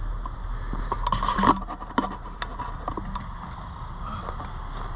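A steelhead being handled in a landing net on dry ground: scraping and a few sharp clicks, the loudest a rustling scrape about a second in, over a steady low rumble.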